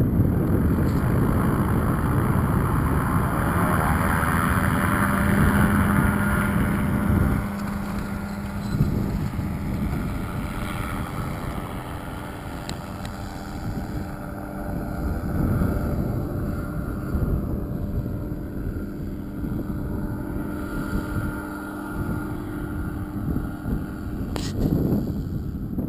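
Propeller engine of an aerotow tug aircraft under power as it tows a hang glider up and away: a steady drone, loudest for the first seven seconds, then dropping off and fading as it recedes. Wind buffets the microphone throughout, with a brief louder gust near the end.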